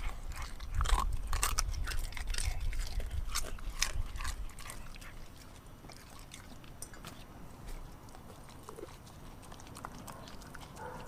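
A German shepherd mix dog chewing and crunching a piece of dried meat in a stainless steel bowl, with a quick run of sharp crunches for the first four or five seconds, then slower, quieter chewing.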